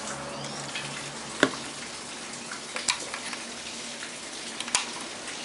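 Steady hiss with three sharp clicks, about a second and a half apart, of the radio's plastic parts and circuit board being handled.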